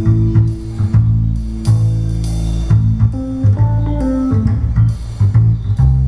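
Film-noir style instrumental music, with plucked bass and guitar notes, played back through a pair of small two-way DIY stereo speakers with Dayton Audio drivers.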